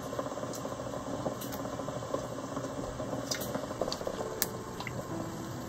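Water with black beans coming to a boil in an electric pressure cooker's steel inner pot on the sauté setting, bubbling steadily, with a few light clicks near the middle.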